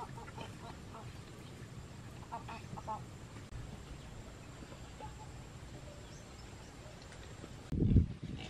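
Domestic fowl calling: a quick run of short, clipped calls about two and a half seconds in, over a steady low rumble. Near the end comes a loud, low muffled thud.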